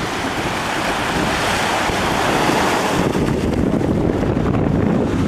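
Sea surf washing on the shore, with wind buffeting the microphone. About three seconds in the higher hiss fades, leaving mostly a low wind rumble.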